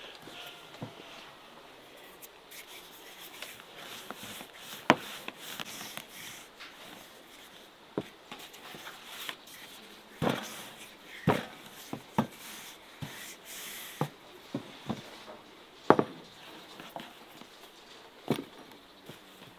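Irregular light knocks and taps of hands working a sheet of rolled-out dough on a floured wooden board, with a dozen or so sharper knocks scattered through.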